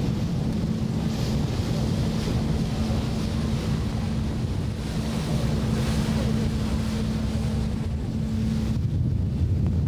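A boat's engine running with a steady low hum, under wind buffeting the microphone and the rush of water past the hull.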